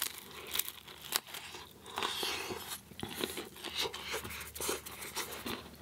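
A person chewing crisp food close to the microphone: repeated crunches and bites, with a denser run of crunching about two seconds in.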